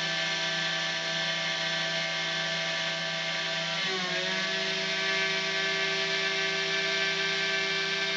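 Kress router spindle on a desktop CNC mill cutting aluminium with a small endmill: a steady high whine with a rough cutting noise. About four seconds in, the pitch dips briefly and then settles again.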